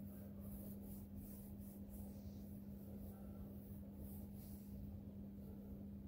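Metal spatula scraping and stirring through a thick jackfruit-and-prawn masala in a steel kadai, in soft repeated strokes. A steady low hum runs underneath.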